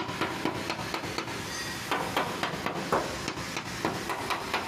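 An irregular series of light knocks and taps of a hand on a Daihatsu Cuore's steel body panel, a few with a brief ring. The panel is being checked for body filler under the paint, and the owner finds it plain with no putty.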